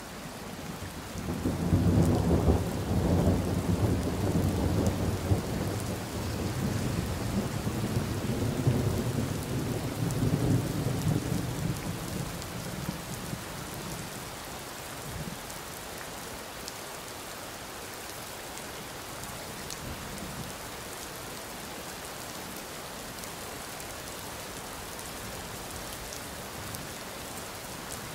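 Steady rain with a long roll of thunder that builds about a second in, rumbles deep and loud for around ten seconds, then fades away, leaving only the rain.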